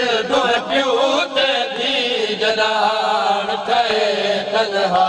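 Male voices chanting a noha, a Shia mourning lament, over a microphone and loudspeakers, several melodic lines overlapping without a break.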